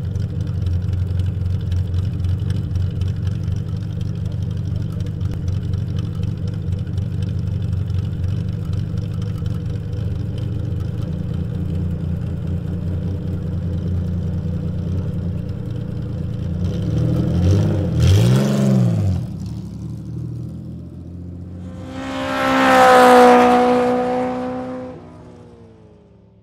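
Race car engine running at a steady low rumble, then revved up and back down once, then a loud high-revving run that drops in pitch and fades away near the end.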